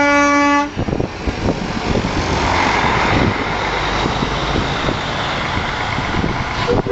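A truck horn sounds in the first split second and cuts off. A tractor-trailer then passes close by, its engine and tyre noise swelling a couple of seconds in and fading. A second truck horn starts just at the end.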